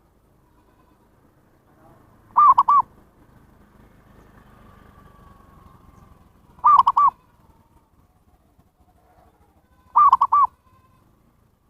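Zebra dove cooing, a lure call for wild zebra doves: three short bursts a few seconds apart, each a quick run of three or four soft arched coos.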